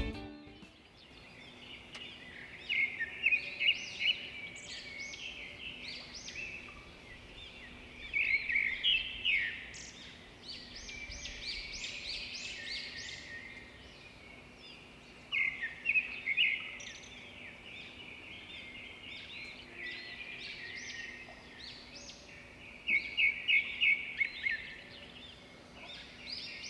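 Birds chirping, with bursts of rapid chirps coming back roughly every seven seconds between softer calls.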